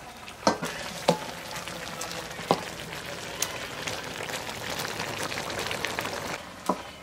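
Eggplant and lentils cooking in a steaming wok, the liquid sizzling and bubbling steadily, with a few sharp knocks about half a second, a second and two and a half seconds in; the sizzle eases near the end.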